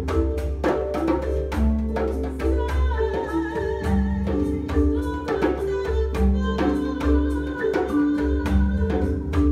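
Improvised world music for marimba, djembe and kora: mallet notes ring over dense hand-drum strokes and a deep sustained bass. A high, wavering melody line comes in about three seconds in.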